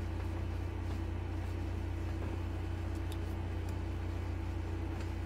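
A steady low hum, with a few faint ticks from a marker tip on paper.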